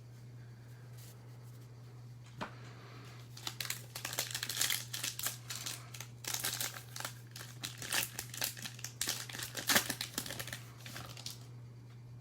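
Trading card pack wrapper being torn open and handled, crinkling in dense bursts that start about three seconds in and stop shortly before the end, over a steady low hum.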